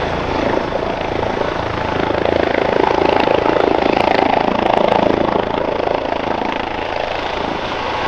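Airbus EC135 P2+ helicopter with twin Pratt & Whitney PW206B turboshaft engines taking off: steady rotor and turbine noise, loudest about three to five seconds in, then easing off a little as it moves away.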